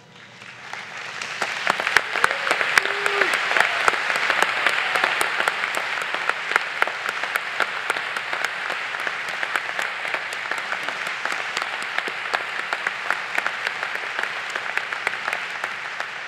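Large audience applauding, building up over the first two seconds, then many hands clapping steadily and easing off slightly near the end.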